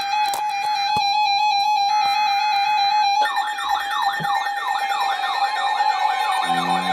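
Emergency Alert System alert tones: two buzzing data bursts of about a second each over a steady electronic tone, then, about three seconds in, a fast up-and-down warbling siren-like sweep joins the steady tone, with rising tones coming in near the end. They lead into a severe thunderstorm warning.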